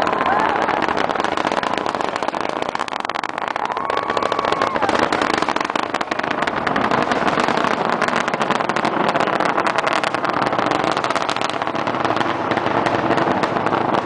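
Space Shuttle launch roar heard from miles away: a loud, steady rumble thick with rapid crackle from the solid rocket boosters.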